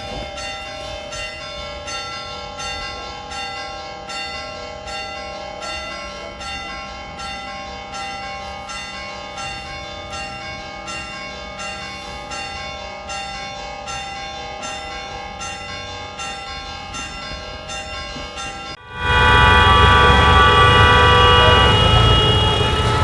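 Church bells ringing, struck over and over at a steady pace. About nineteen seconds in the sound cuts to much louder traffic: car horns held in long, overlapping blasts over engine rumble, drivers honking in a jam.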